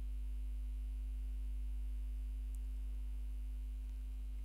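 Steady low electrical mains hum, with a fainter steady higher tone above it.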